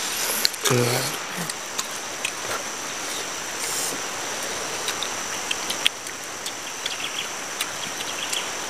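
Steady outdoor hiss like running water, with a steady high drone above it. A short vocal sound comes about a second in, and faint light clicks are scattered through.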